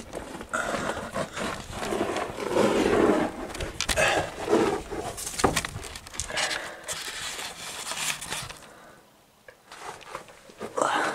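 A person walking through a narrow rock tunnel: footsteps on a gravel and dry-leaf floor with rustling and knocking from a handheld camera, irregular throughout. It goes nearly quiet for about a second around nine seconds in.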